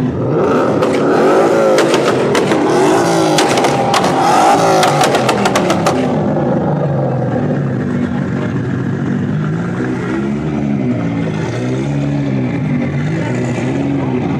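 Sports car engines revving as the cars pull away, their pitch rising and falling with the throttle. A rapid run of sharp cracks goes on through the first six seconds, then the engine sound drops lower, with a few shorter revs near the end.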